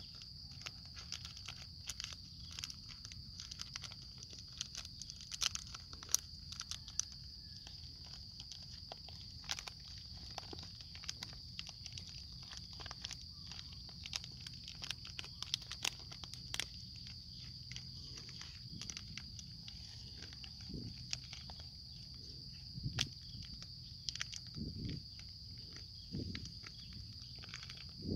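Plastic crinkling and clicking as a plastic bag and a clear plastic lid are handled around a plant stem, a few sharp clicks standing out, over a steady high shrill of insects.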